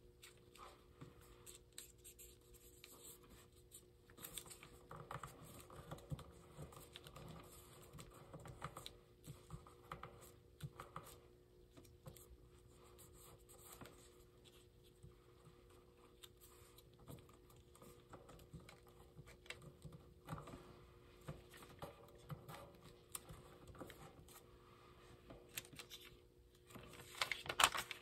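A sheet of origami paper rustling and crinkling as it is folded and creased by hand, with soft irregular taps and scrapes of fingers on the paper. A louder burst of rustling comes near the end as the sheet is handled more broadly.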